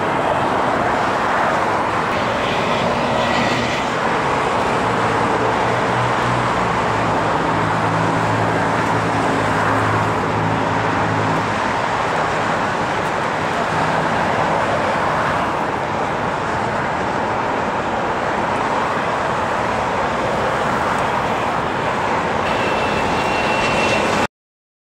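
Twin-engine business jet on final approach, its rear-mounted turbofans making a steady rushing noise, with a low hum in the middle and a faint high whine near the end. The sound cuts off suddenly just before the end.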